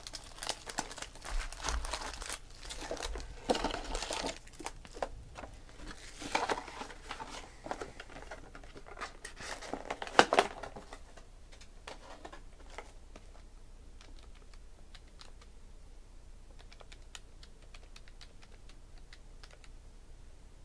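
Foil trading-card pack wrappers crinkling and crackling as they are handled and crumpled, in uneven clusters, with the loudest crackle about ten seconds in. After that, only faint light clicks and ticks.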